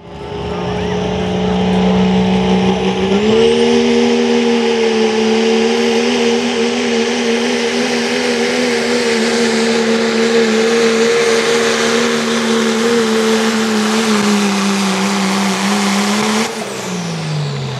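The 6.7-litre Cummins straight-six diesel of a 2012 Dodge Ram pulling truck is running at high revs under full load while dragging a pulling sled. Its pitch steps up about three seconds in and holds steady, then drops and winds down near the end as the throttle comes off.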